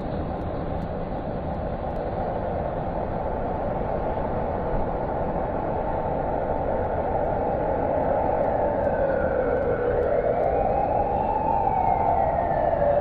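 Opening of an instrumental noise-music track: a dense, hissing rumble that slowly grows louder, joined about eight seconds in by a siren-like wail that slowly rises and falls.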